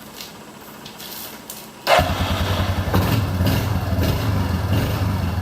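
A vehicle engine starts with a sudden burst about two seconds in, then keeps running steadily.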